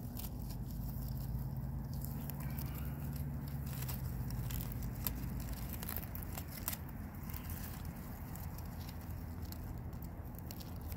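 Pomeranian puppies chewing and tugging at dry grass and fallen leaves: scattered crackles and rustles over a low, steady rumble.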